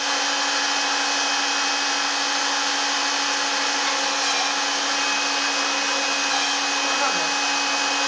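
Home-built CNC router's spindle running steadily at about 16,500 rpm with a 4 mm three-flute cutter: a constant high whine over a loud hiss.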